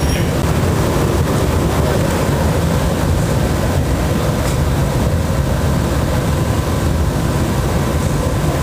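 Steady low roar of gas-fired glassblowing furnaces and glory hole with their burner blowers, running without change.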